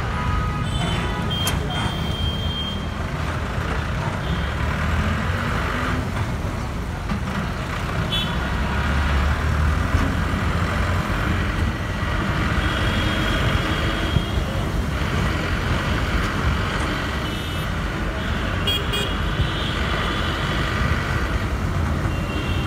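Busy road traffic: engines running and tyre noise in a steady wash, with short vehicle horn toots now and then.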